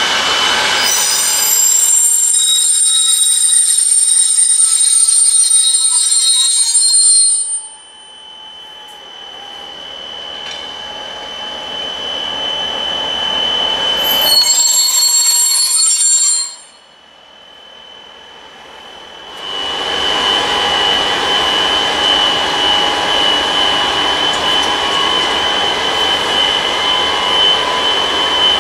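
Slow-moving freight train behind two diesel locomotives, its wheels and brakes squealing high-pitched over the rolling noise. The sound drops away sharply twice, at about a third and about two thirds of the way through, then builds back up into a steady squeal.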